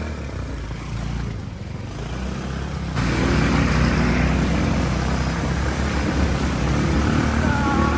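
ATV engine running under way on a dirt trail, getting louder about three seconds in with more rushing noise across the range.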